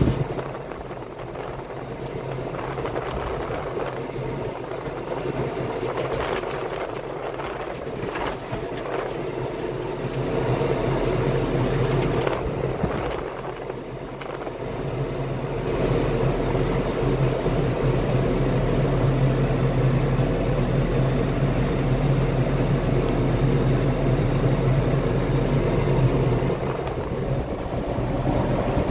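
Farm tractor engine running steadily, heard from the driver's seat, with a low drone that grows louder a little past halfway. A few brief rattles come in the first half.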